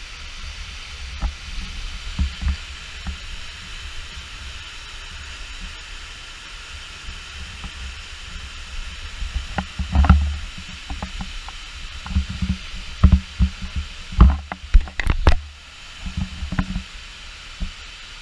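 Waterfall rushing with a steady hiss of falling water. Irregular low thumps run under it, and a cluster of sharp knocks comes in the second half.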